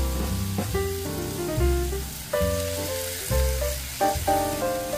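Shredded collard greens and sliced calabresa sausage sizzling in a frying pan as a spoon stirs them, over background music with a pulsing bass beat and melodic notes.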